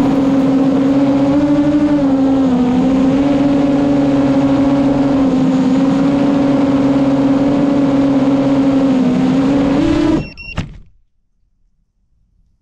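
FPV quadcopter's motors and propellers whining at a steady, fairly even pitch that rises and dips slightly now and then. The sound cuts off suddenly about ten seconds in, with a short high beep.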